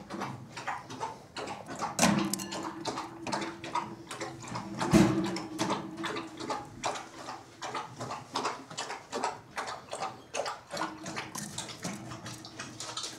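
Gerbils moving about a wire cage: a stream of irregular scratches, clicks and light rattles, with a louder knock about five seconds in. A low steady hum comes and goes underneath.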